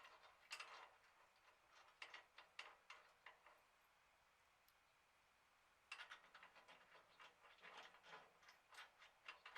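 Near silence with faint, scattered clicks and light taps, coming in two spells with a quiet gap of about two seconds in the middle.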